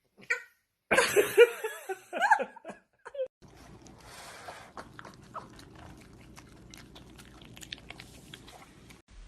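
A dog vocalising in a run of loud, pitched, wavering yelps and whines for about a second and a half, then a short call. After that comes a quieter stretch with scattered clicks.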